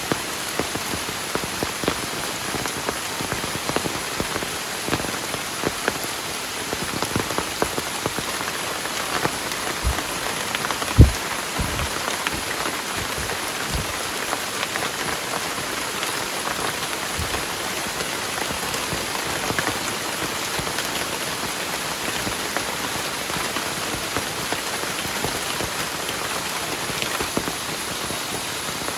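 Heavy rain falling steadily, a dense patter of drops. A few dull thuds come around the middle, one of them loud, about eleven seconds in.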